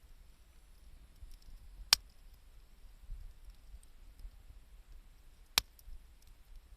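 Wood campfire crackling: faint small ticks and snaps, with two sharp loud pops about two seconds in and again near the end.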